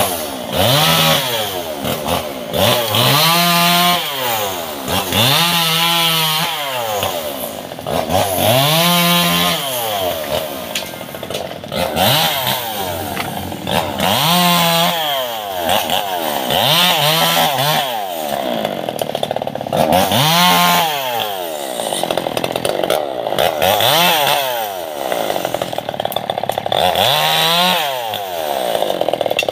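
Two-stroke chainsaw revved up and let back down over and over, about ten times, each rise and fall of engine pitch lasting two to three seconds, as in short cuts through branches.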